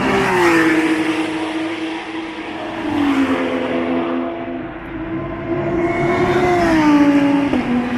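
Race car engines passing down the pit straight one after another, each engine note dropping in pitch as the car goes by: once about half a second in, again about three seconds in, and near the end a loudest pass where the note rises and then falls sharply.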